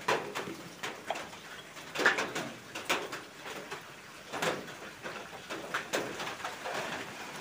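Scattered light clicks and taps from a small glass and a plastic fluid bottle being handled while DOT 3 brake fluid is poured into a motorcycle's front brake master cylinder reservoir, over a faint steady hiss of rain.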